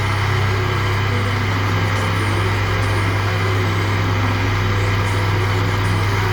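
Electric woodworking machine running steadily with no cut under way: a continuous low motor hum.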